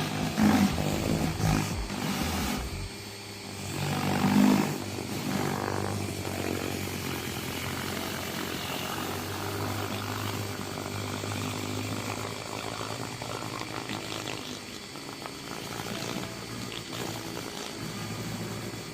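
Electric pressure washer running steadily, its water jet spraying under a Greenworks rotating surface cleaner as it is pushed over concrete. There are louder surges near the start and around four seconds in.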